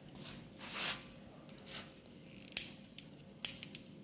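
A hand-held lighter clicking about six times in quick succession in the second half as it is struck to light a stick firework, after a few soft handling rustles.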